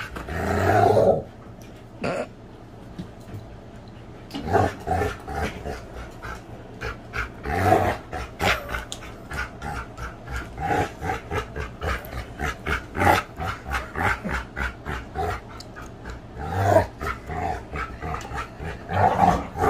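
Dog growling in short rough bursts during rough play, over a steady patter of scuffling and clicking from paws and bodies on the floor.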